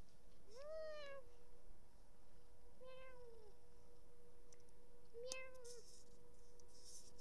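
Domestic cat meowing three times, about two and a half seconds apart, each meow a short call that rises and then falls in pitch.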